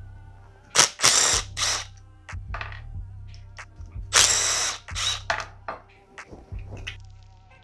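Cordless drill/driver spinning a bolt out of a brake caliper in short bursts: three quick ones about a second in, then a longer run about four seconds in. Steady background music underneath.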